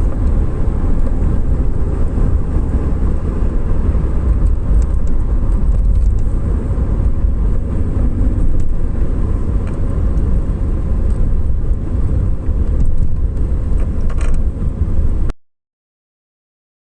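Steady low road and engine noise inside a moving Toyota Cresta GX71, heard from the cabin. It cuts off abruptly near the end.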